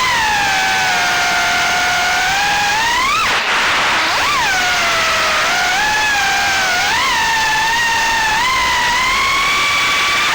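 Brushless motors (GEPRC 1206 4500kv) on a 3-inch FPV quadcopter whining with 3-inch Gemfan Windancer props over a rush of prop wash. The pitch rises and falls with the throttle: it drops sharply a little over three seconds in, then punches back up about a second later.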